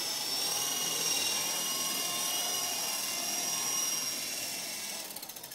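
Small electric radio-controlled helicopter running: a steady high whine of its motor and spinning rotor, which dies away near the end as the model sets down on grass and the rotor slows.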